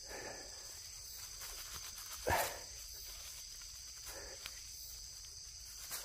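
Insects trilling steadily in a high, even drone, with a short scrape of soil and dry leaves about two seconds in as the ginseng root is dug out by a gloved hand, and a faint tick later on.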